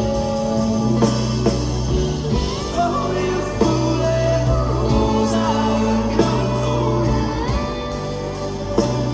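A rock band playing live, recorded from the audience. Sustained bass notes change every second or two under a wavering, gliding melody line.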